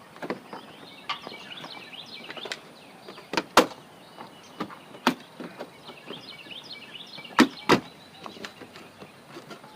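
Sharp knocks and taps from hand work on the trailer's corner: two loud pairs of strikes, a few seconds apart, with a single strike between them and lighter taps scattered around them.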